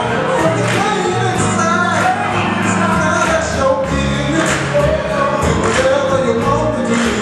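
Gospel choir singing with band accompaniment, voices over a steady bass line and beat.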